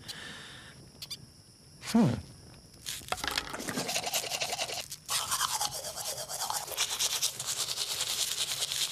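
Rapid scrubbing strokes of teeth being brushed, in two long spells with a brief break just before the five-second mark. About two seconds in, before the brushing starts, a short falling tone is the loudest sound.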